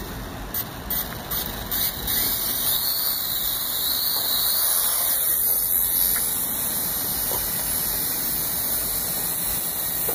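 WLToys V929 mini quadcopter's four small electric motors and propellers spinning up to lift off from water, choppy for about the first two seconds, then a steady whir with a whine that rises and falls in pitch as it flies.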